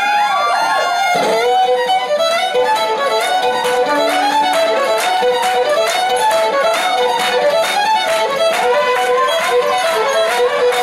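Folk ensemble of fiddles, guitar and tuba playing a fast reel live, opening on sliding notes. From about two seconds in, the crowd claps along in a steady beat.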